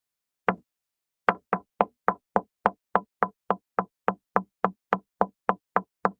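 Hanna-Barbera cartoon wood-knock sound effect: one sharp wooden knock, then a long fast run of evenly spaced knocks, about three and a half a second.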